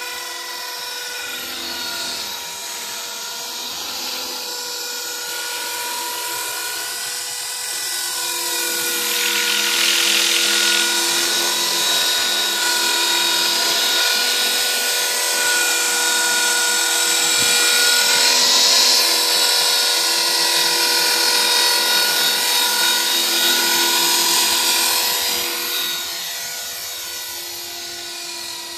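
Electric 450-size RC helicopter (HK 450 PRO TT) in flight: a steady high-pitched whine of motor, gears and rotor with several overtones, its pitch wavering slightly as it manoeuvres. It grows louder about a third of the way in and eases off again near the end.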